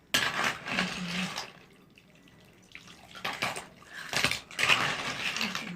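Cooked snails being stirred in their broth in a cooking pot: liquid sloshing with a clatter of shells, in two bouts, the second starting about three seconds in.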